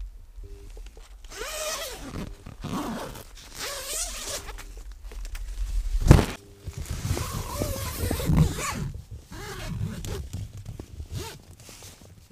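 Tent door zipper being pulled in several separate runs as someone gets into the tent, with one sharp thump about six seconds in, the loudest sound.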